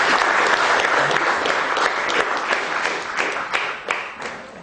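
Audience applauding, loudest at first, then thinning out and growing quieter over the last second or two, with single claps standing out near the end.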